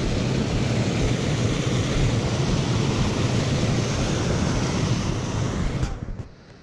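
Wind buffeting the microphone outdoors, a loud, rough, rumbling rush that cuts off suddenly near the end.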